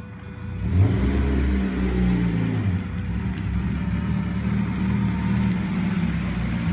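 Mazda Miata's four-cylinder engine running as the car drives slowly up close, the sound swelling about a second in and then holding steady.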